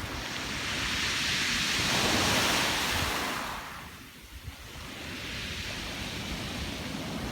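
Surf breaking on the shore: a wave's wash swells and peaks, fades about four seconds in, and the next one builds. Wind rumbles on the microphone.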